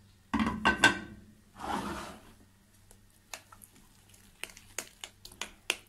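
Metal spoon clinking and scraping against a glass bowl while stirring flour into hot milk. A burst of loud, ringing clinks comes about half a second in, then a short scrape, then lighter irregular clicks.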